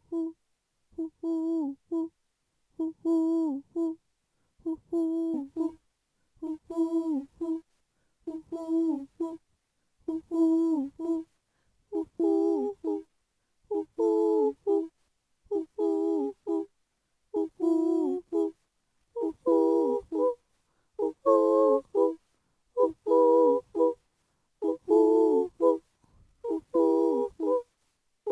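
A voice humming the same short wordless phrase over and over, about once every two seconds with short gaps between, growing fuller in the last third.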